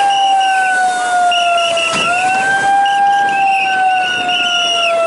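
An emergency siren wailing, its pitch slowly rising and falling about every three seconds, with a higher warbling tone sounding in short spells over it.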